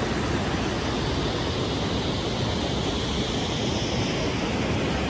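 Steady rushing outdoor noise with no pitch or rhythm, constant in level.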